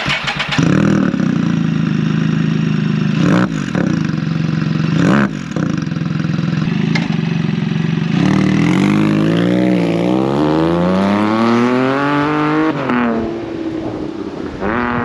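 Can-Am Spyder F3's Rotax 1330 ACE inline three-cylinder engine running through an RLS Punisher exhaust with a Lamonster Pipe cat delete, the loudest combination fitted to it. It runs steadily with two quick blips of the throttle, then revs up with the pitch climbing for about four seconds before dropping back.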